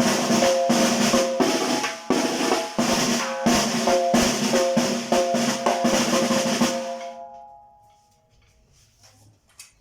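Tarola (banda snare drum) played with rapid strokes and rolls, stopping about seven seconds in and ringing off.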